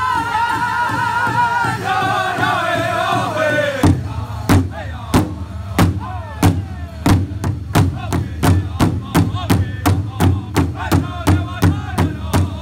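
Powwow drum group singing in high voices around a large hide drum. For the first four seconds a high sung line is held and falls without drumming; then the drum comes back in with unison beats that quicken to about three strokes a second under the singing.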